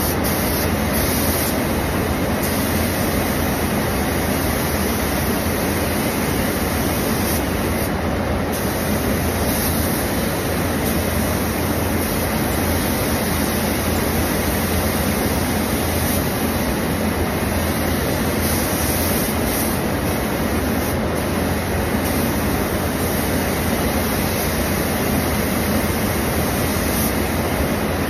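Steady rush of air in a paint spray booth: the booth's airflow and the compressed-air spray gun hissing as paint is sprayed, loud and unchanging.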